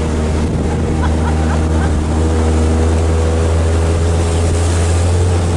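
Austin Champ's engine running steadily under way, a constant low drone, heard from aboard the open-topped vehicle.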